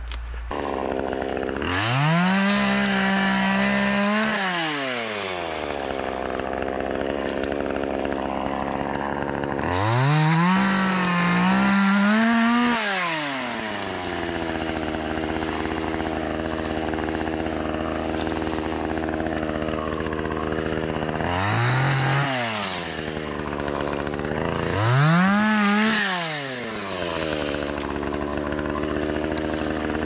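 Chainsaw idling, revved up to full speed four times and dropping back to idle each time. The first two revs are long, at about 2 and 10 seconds in; two shorter ones come near 22 and 25 seconds.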